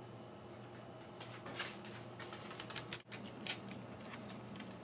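A dog's claws clicking faintly and irregularly on a hardwood floor as it walks, starting about a second in.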